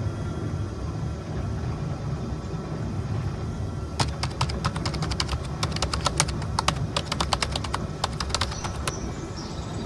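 A run of irregular sharp clicks over a steady low rumble.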